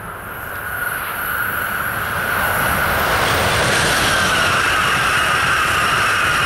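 Amtrak Acela Express electric high-speed trainset approaching and passing at speed: a rush of wheel and air noise that builds over the first few seconds and then holds loud, with a steady high whine that drifts slightly lower near the end.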